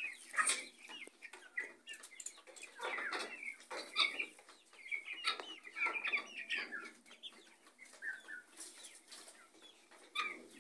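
Chickens clucking: an irregular string of short calls, sometimes several in quick succession.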